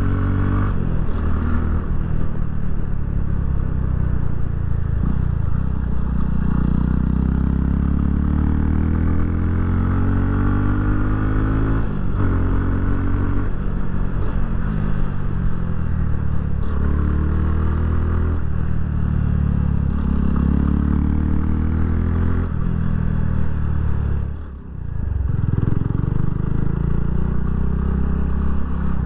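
Yamaha FZ25's 249 cc single-cylinder engine under way. Its pitch climbs repeatedly and drops back as the motorcycle accelerates and eases off, with a brief dip in level about 25 seconds in.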